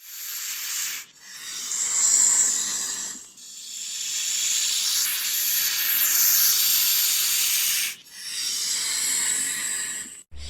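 Snake hissing: four long, breathy hisses in a row, each broken off by a short pause, the longest lasting about four seconds.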